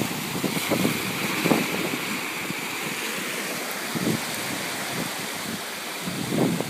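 Ocean surf washing over a rocky reef shelf as a steady hiss, with wind buffeting the microphone in low rumbling gusts several times.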